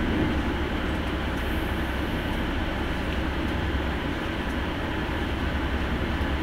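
Steady drone of a coach bus's engine and road noise, heard from inside the driver's cab while under way.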